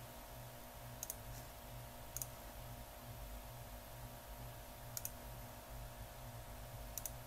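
Computer mouse clicking four times, a second or more apart, each a quick double tick of the button pressed and released, over a faint steady hum.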